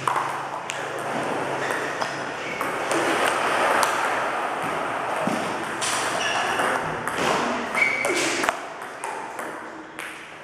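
Table tennis balls clicking off paddles and the table in quick, irregular succession during a multiball feeding drill, the coach feeding balls one after another from a bowl and the player returning them.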